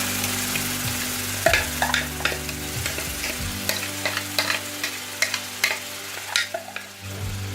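Yogurt-marinated rohu fish pieces frying in hot ghee in a pan: a steady sizzle that slowly fades. From about a second and a half in come many sharp clicks and pops.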